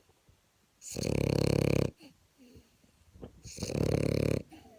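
French bulldog snoring: two loud snores, each about a second long and nearly three seconds apart, with faint whistling breaths between them. Snoring of this kind is typical of a short-muzzled breed.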